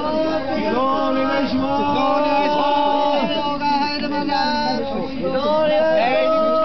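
Several people singing together, their voices overlapping in long held notes that slide between pitches.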